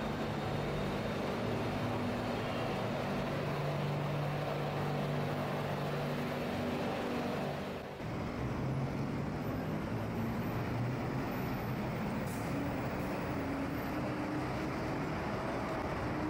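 BTS Skytrain electric train pulling into an elevated platform, its motors giving a steady hum with several held tones. About eight seconds in the sound cuts sharply to steady road traffic: cars and buses running along the street.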